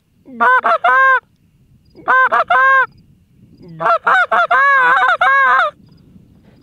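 Goose honking, very loud, in three bursts of quick honks, the last burst the longest.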